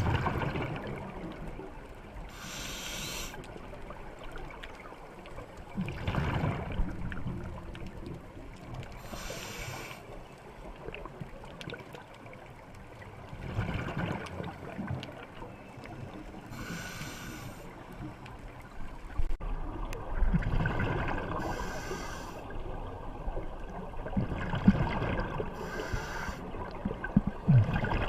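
A diver breathing underwater through a scuba regulator: a high hiss on each inhale alternates with the low rumble of exhaled bubbles, a breath cycle repeating about every six to seven seconds.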